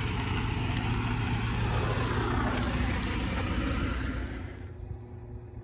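A motor vehicle running: a steady hiss over a low hum, with the hiss fading out about four and a half seconds in while the low hum carries on.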